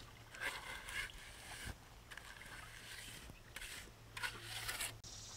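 Faint scraping and smearing of wet lime plaster being pushed onto a cob oven and spread with a trowel, in several short strokes.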